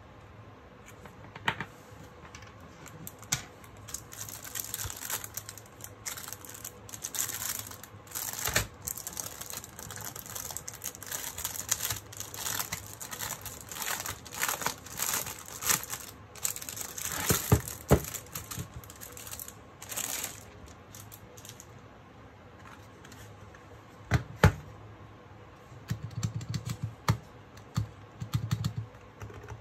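Plastic packaging crinkling and rustling with scattered knocks and clicks as a Razer Huntsman Mini keyboard is unpacked and handled. Near the end comes a quick run of soft key taps on its linear optical switches.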